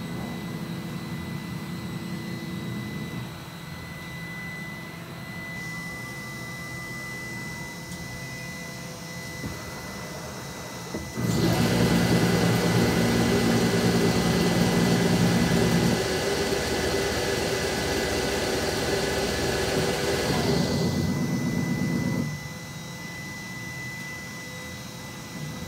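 Steady hum of machine-shop motors. About eleven seconds in, a much louder motor starts with a whirring hiss, steps down a little about five seconds later, and shuts off about eleven seconds after it started.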